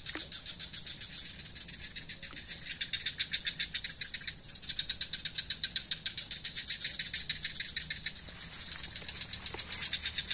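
Night insects calling: a rapid, high pulsing chirr, about eight pulses a second, that comes in trains of a few seconds, over a steady high whine.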